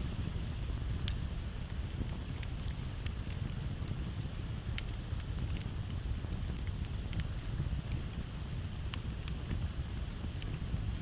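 Campfire crackling, with sharp pops scattered irregularly over a low steady rumble; the strongest pop comes about a second in. Crickets chirp steadily in the background.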